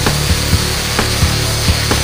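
Handheld grinder running against stainless steel tubing, a steady grinding hiss as the tube is sanded and buffed, mixed with background music that has a steady beat of about four knocks a second.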